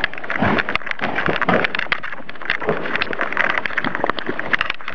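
Footsteps hurrying through dry leaf litter and twigs, a dense crunching and rustling, with handling noise on the microphone.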